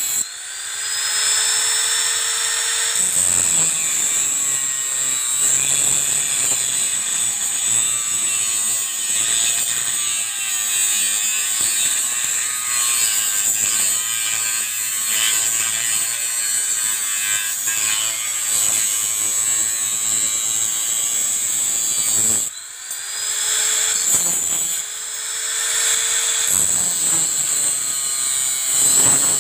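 Hand-held electric angle grinder cutting into the steel of an old leaf spring, a steady high whine and grinding hiss whose pitch wavers as the disc bites. Twice, just after the start and again a little past twenty seconds, the load comes off and the motor's whine rises as it spins back up, before the cut goes on.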